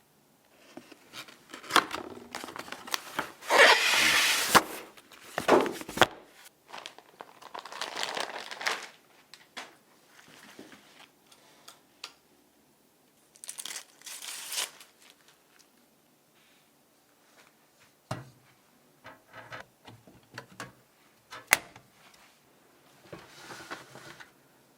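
Plastic crinkling and tearing in irregular bursts, loudest in the first few seconds, followed by shorter rustles and a few sharp clicks, as PC parts and their packaging or film are handled.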